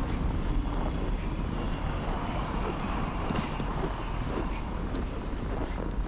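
Wind rumbling steadily on the microphone over the noise of street traffic.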